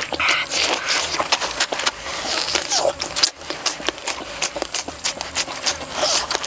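Close-up eating sounds: a stream of wet chewing, lip-smacking and small crunching clicks from bites of a large roasted chunk of food.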